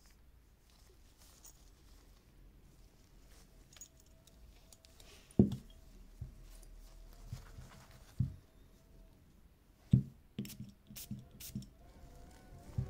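Glass perfume bottle handled in gloved hands, with its cap off: quiet at first, then a few short, dull knocks from about five seconds in, and a quick run of smaller knocks and sharp clicks near the end.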